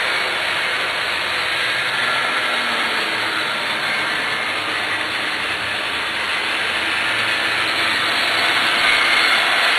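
Model trains running on a home layout: a steady whirring rumble of small electric motors and metal wheels on the track, a little louder near the end.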